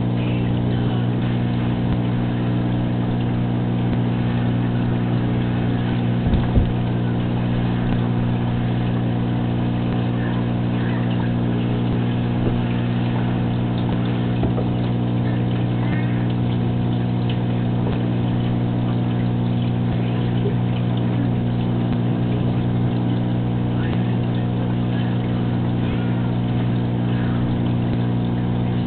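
Aquarium pump motor humming steadily, with a short knock about six seconds in.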